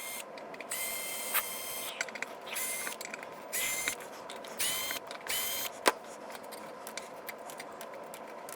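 Cordless drill-driver running in short bursts, about six whirs in the first six seconds, backing out screws to free the heatsinks and boards from the power supply chassis. A sharp click near six seconds.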